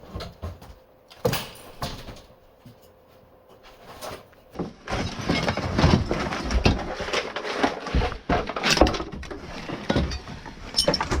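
Junk being handled and cleared out inside an RV: a few scattered knocks, then from about five seconds in a dense run of clattering and scraping that lasts several seconds.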